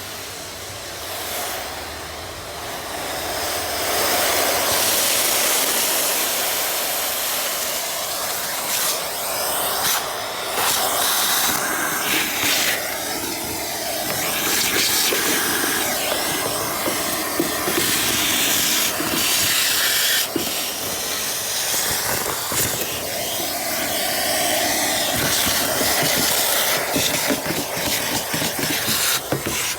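A cleaning spray hissing steadily, its level shifting as the jet is moved about, with a few light knocks.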